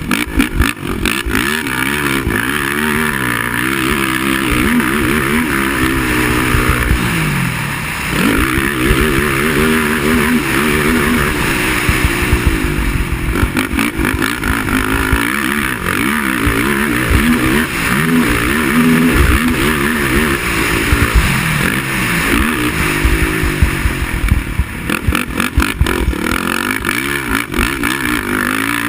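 Racing quad (ATV) engine revving hard, its pitch rising and falling over and over as the throttle is opened and closed through a race lap.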